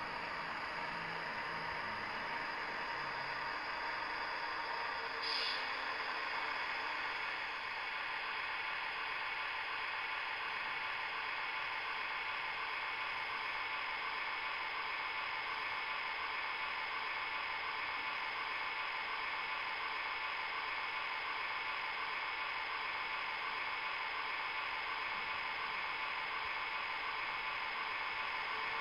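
ACME E444 model electric locomotive's DCC sound decoder playing its running sound as the model creeps along the track: a steady hissing hum with a faint regular pulsing. A short sharp sound comes about five seconds in.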